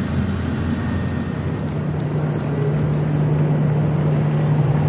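A formation of military helicopters (AH-64 Apache, AS565 Panther, EC725 Caracal and AS332 Super Puma) flying over, with rotor and turbine noise droning continuously. A steady low hum comes in about two seconds in, and the noise grows a little louder as they come closer.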